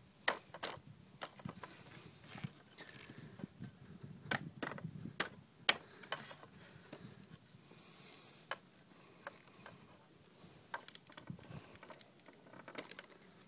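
Scattered sharp clicks and knocks from the frame parts and fittings of a Tyne folding kayak being worked loose and handled during disassembly, with a few brief spells of soft rustling.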